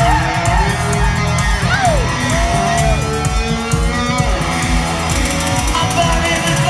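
Live band playing a rock song through an arena sound system: an instrumental stretch with gliding electric guitar lead lines over a steady bass and drum beat.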